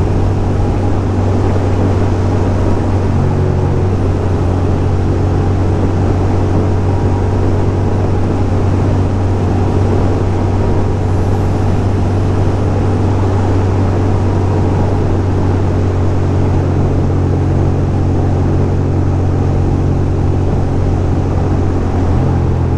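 2006 Ducati Monster 620's air-cooled L-twin engine running steadily under way at a constant cruise, with wind and road noise.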